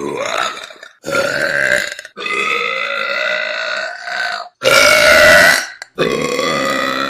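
A girl burping, a string of about five long, drawn-out pitched burps with short breaks between them; one in the middle lasts about two seconds, and the loudest comes about two-thirds through.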